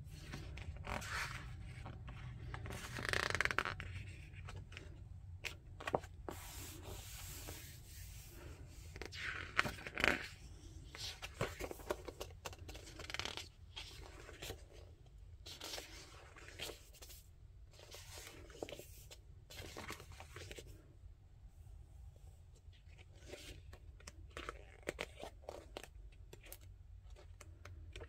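Paper pages of a softcover activity book being opened, turned and smoothed flat by hand: rustling swishes and light crinkles, loudest about three seconds in and again around ten seconds in, over a low steady hum.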